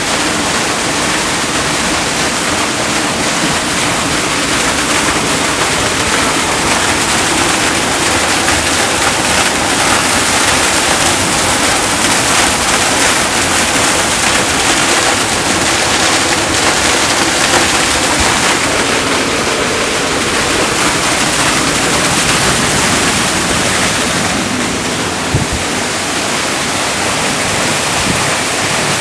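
Waterfall pouring down a rock face into a plunge pool: a loud, steady rush of falling water.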